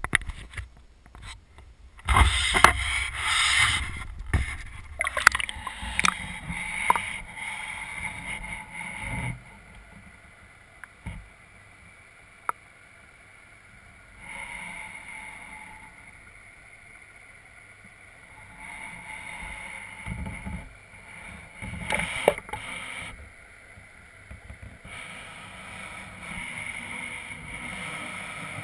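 Waterproof camera housing being handled and lowered into a garden pond, with irregular knocks and sloshing for the first several seconds. After that, a muffled underwater hiss and gurgle from an aerator's rising column of air bubbles, with a few knocks.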